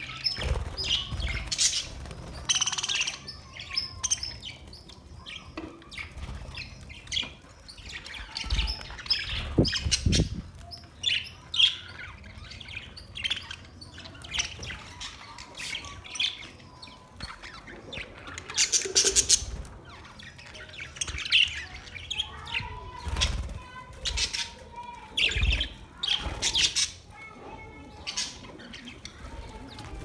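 A flock of budgerigars chirping and chattering, a steady run of short, high, irregular calls from many birds at once, with occasional low thumps.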